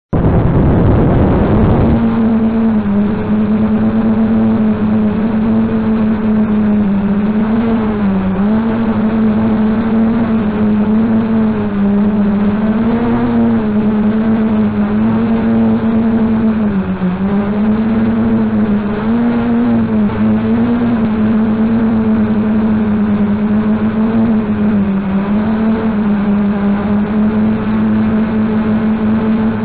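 HobbyKing Y4 Scorpion multirotor's small brushless motors and propellers spinning up for takeoff, settling after about two seconds into a steady buzzing whine. Through the rest of the flight the pitch wavers up and down as the throttle changes.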